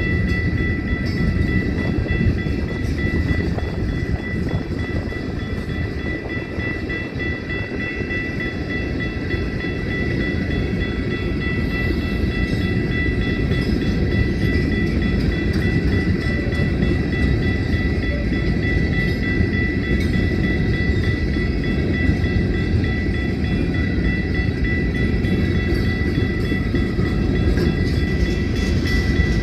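Loaded rock train's hopper cars rolling past: a steady rumble of steel wheels on rail, with a steady high-pitched tone held above it.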